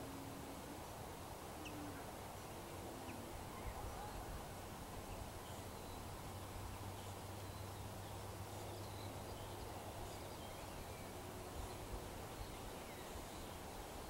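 Faint scattered birdsong, short chirps from small birds, over a steady open-air background hiss, with a low steady hum underneath.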